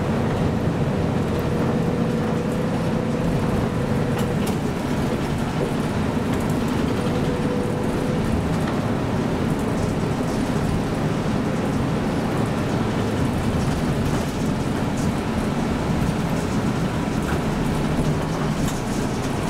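City bus engine running steadily, with cabin and road noise, heard from inside the bus at the front.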